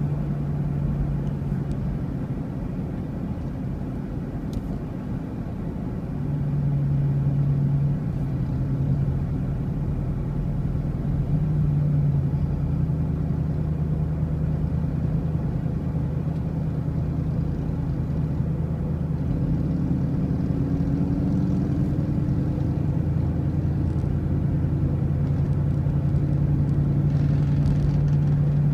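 A motor vehicle under way: a steady engine drone over road noise, its pitch stepping up and down a little now and then.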